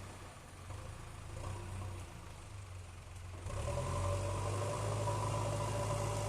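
JCB excavator's diesel engine running with a low steady hum, growing louder about three and a half seconds in as a steady whine joins it.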